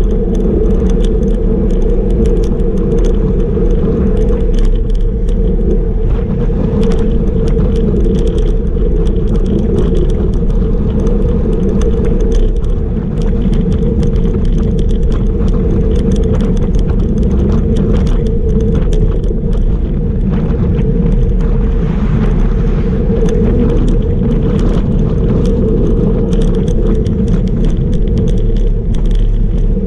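Steady wind rush over the microphone of a bike-mounted camera, mixed with road-bike tyres rolling on asphalt at about 37 km/h, with scattered light rattles from the bike.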